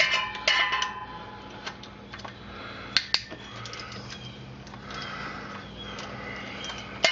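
Irregular metallic clinks and taps of a wrench working the 8 mm thermostat housing bolts under a truck, with two sharp clinks about three seconds in, over a faint steady hum.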